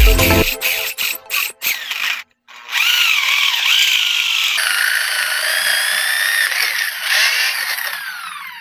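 A power tool running, its whine wavering and gliding in pitch, after a few short clicks; it fades out near the end.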